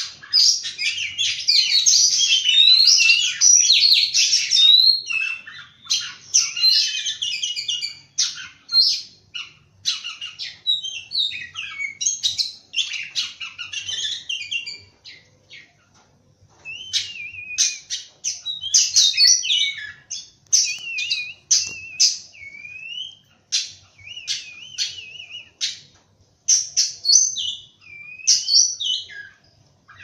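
Oriental magpie-robin singing a varied song of whistles, trills and chirps. It is dense and continuous for the first few seconds, then breaks into separate phrases with short pauses, some of them wavering whistles.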